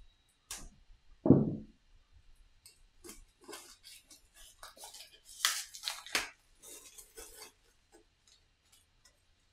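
Board game box contents being handled on a table: a dull thud about a second in, then a run of short rustles and clicks as cards and components are moved.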